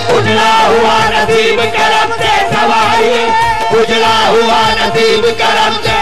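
Qawwali music: harmonium with a percussion beat, and the side singers of the qawwali party singing.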